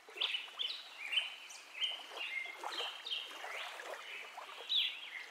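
Many birds chirping, short high calls overlapping one after another over a faint background hiss.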